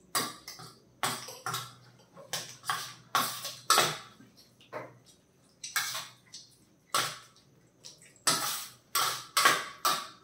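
Spoons scraping and clinking on plates, one of them a steel plate, as parotta is cut up and scooped. The clinks and scrapes come irregularly, about two a second.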